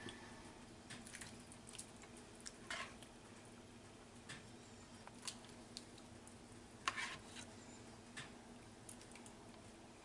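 Faint scattered taps and wet plops of a ladle dipping into a pot of meat sauce and spooning it onto lasagna in a foil pan, over a faint steady low hum.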